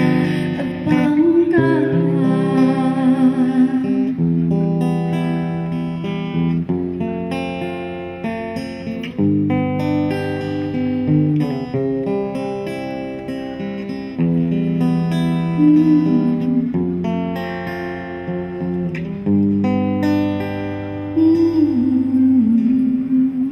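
Acoustic guitar playing a slow sequence of strummed and plucked chords. A woman's voice sings a few held, wavering notes over it about a second in, again around the middle, and near the end.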